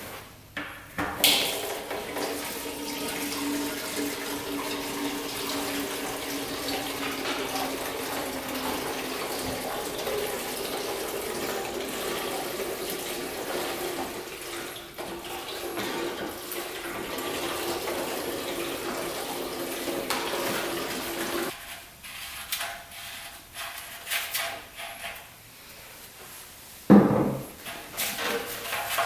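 Two-stroke premix fuel pouring from a plastic gas can into the 1977 Suzuki RM125's fuel tank: a steady gurgling stream whose pitch rises slowly as the tank fills, stopping about twenty seconds in. After that come a few light clicks and a sharp knock near the end.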